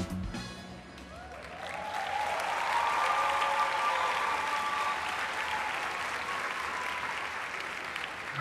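Audience applauding, swelling up about a second and a half in and holding steady, with a few cheering voices. The act's music cuts off at the start.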